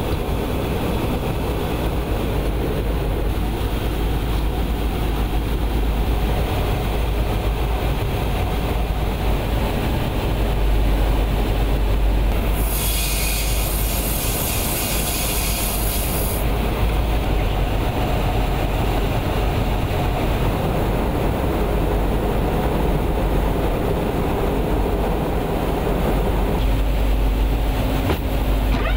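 Steady rumbling roar of aircraft engines and rushing air in flight, heard from inside an aircraft, with a loud hiss that comes in about 13 seconds in and lasts some four seconds.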